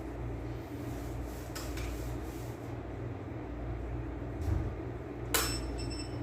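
Fujikura fiber fusion splicer running a splice cycle over a steady low hum, with one sharp click about five seconds in followed briefly by faint high tones.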